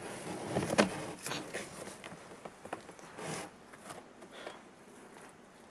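Cardboard rustling and scraping, with scattered crackles and a sharp click about a second in, as a cardboard box lid is pushed from inside.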